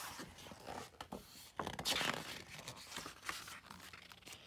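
Pages of a hardcover picture book being turned by hand: paper rustling and swishing, loudest about two seconds in, with a few small clicks and scrapes.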